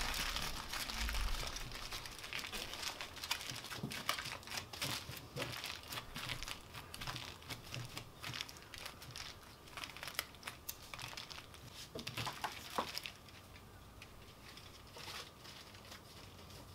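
Aluminium foil crinkling and crackling as hands press and crimp it tightly around a brisket, a dense run of small crackles that stops suddenly near the end.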